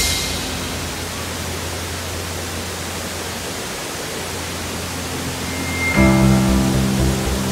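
Steady rushing noise of Shifen Waterfall under background music. The music holds a low note at first, and a beat comes back in about six seconds in.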